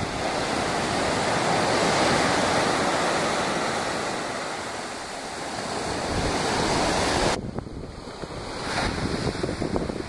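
Ocean surf breaking and washing onto a beach, a steady wash that swells and fades, with wind buffeting the phone's microphone. About seven seconds in the sound changes abruptly to mostly wind gusts on the microphone over a fainter sea.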